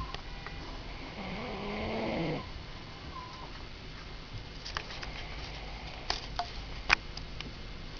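A man snoring: one drawn-out snore from about one to two and a half seconds in, then a pause broken by several sharp clicks near the end.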